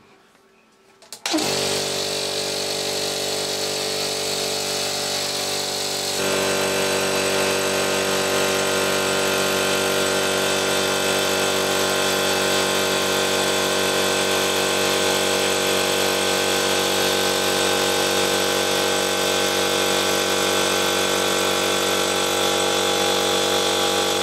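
Electric air compressor starting up about a second in and running steadily as it pumps up its tank, its sound changing about six seconds in. The motor starts and runs normally again after its repair.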